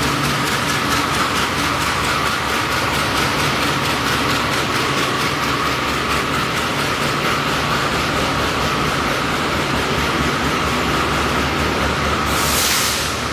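Passenger train coaches rolling past on the station track: a steady rolling noise with a constant tone running through it. A brief hiss comes near the end.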